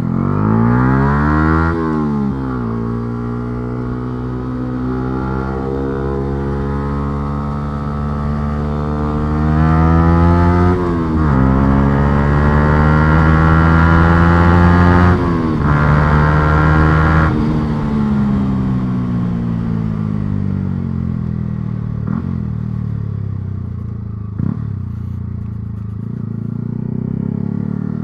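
Yamaha R125's single-cylinder four-stroke engine accelerating through the gears, its pitch climbing and dropping sharply at each of a few upshifts, then falling away as the bike slows. Two short clicks near the end.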